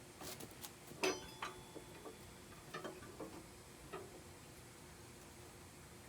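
Light clicks and knocks of metal parts being handled as a mini bike's rear wheel and axle spacer are fitted, a handful of irregular taps with the loudest about a second in, stopping about four seconds in.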